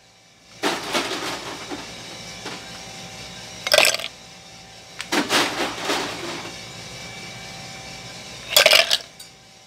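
Ice cubes dropped by hand into a glass coffee server, clinking and clattering in four separate bursts. Underneath, the coffee roaster runs with a steady hum.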